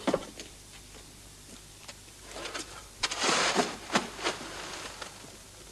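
Shovel scraping and scooping ice in a steel wheelbarrow, for icing crates of fresh cod: a few gritty, crunching scrapes starting a little past two seconds in.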